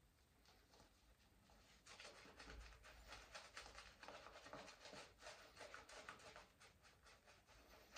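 Safety razor scraping through lathered stubble in short strokes, a faint scratchy crackle that starts about two seconds in.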